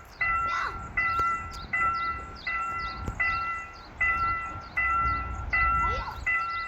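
Railroad level-crossing warning bell ringing, an electronic ding repeating about every three-quarters of a second, over the low rumble of a train.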